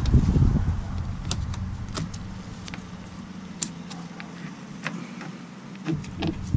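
Light metallic clicks and clinks, spaced about a second apart, as motorcycle sprocket parts are handled. A low rumble of handling or wind noise sits under the first second or so.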